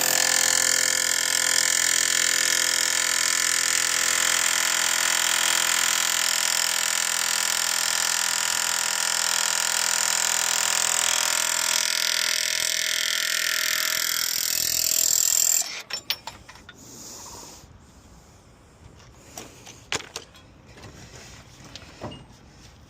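A machine running steadily with a fixed, many-toned sound, cutting off suddenly about sixteen seconds in, followed by faint scattered clanks and knocks.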